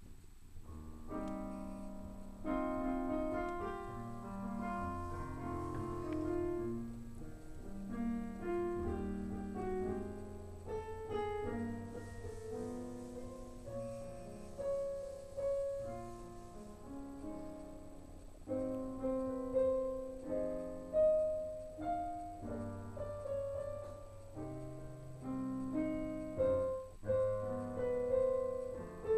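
Piano playing a slow melody over chords and low bass notes, starting about a second in.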